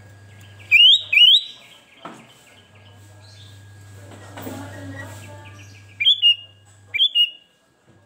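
Sooty-headed bulbul (kutilang) calling in loud, clear whistled notes: two quick rising notes about a second in, then two short pairs of notes that drop slightly in pitch, about a second apart near the end.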